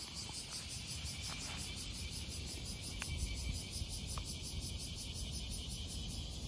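Insects chirping in a steady chorus that pulses about four to five times a second, over a low outdoor rumble, with a few faint short peeps.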